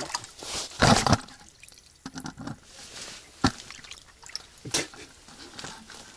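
Water splashing and dripping at an ice-fishing hole as a crucian carp is pulled out by hand, loudest about a second in, with a few sharp clicks.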